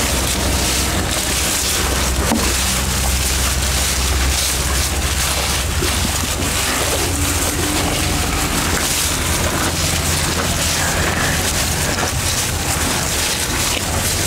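Young cattle eating elephant grass at a wooden manger, with faint scattered crunching clicks under a loud, steady rushing noise and low hum.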